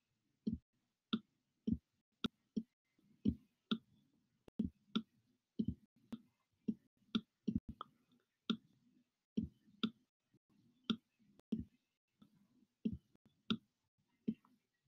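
Stylus tapping and clicking on a tablet screen while handwriting, short sharp clicks at an uneven pace of about two a second, with silence between them.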